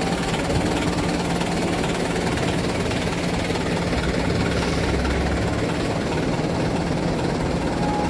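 Mitsubishi Canter dump truck's diesel engine running steadily.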